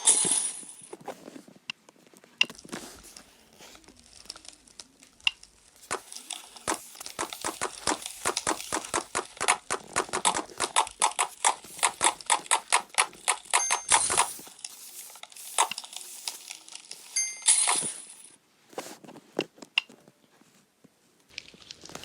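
Slime being squished and poked by hand, making sticky clicks and pops. In the middle it speeds up into a steady run of about three pops a second, with sparser clicks before and after.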